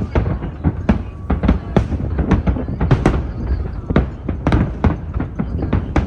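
Fireworks display: aerial shells bursting in quick, irregular succession, two to three sharp bangs a second over a continuous low rumble.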